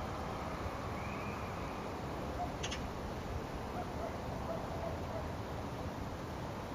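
Steady outdoor background noise, heavy in the low range, with a few faint short tones and a single sharp click about two and a half seconds in.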